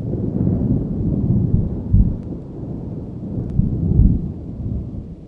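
Low, gusty rumble of wind buffeting the microphone on a moving bass boat, with heavy low thumps about two seconds apart.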